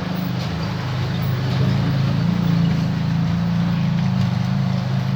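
Remote-controlled toy excavator's electric drive motors and gears running steadily with a low whirring drone, on soft dirt that the toy cannot climb.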